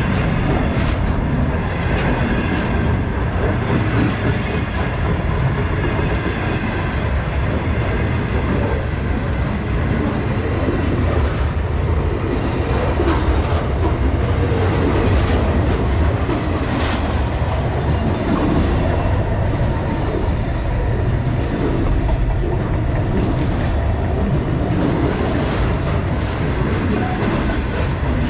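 Freight train wagons rolling past: a steady rumble of steel wheels on the rails, with irregular clacks and knocks as the wheels pass over rail joints.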